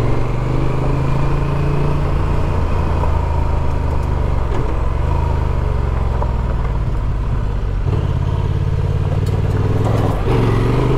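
Adventure motorcycle engine running steadily at low road speed on a gravel road, with tyre and wind noise over it; the engine note eases off briefly a few times.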